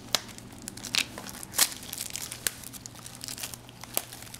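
Trading card pack wrapper being torn open and crinkled by hand, a run of sharp crackles and short rustles, the loudest about a second and a half in.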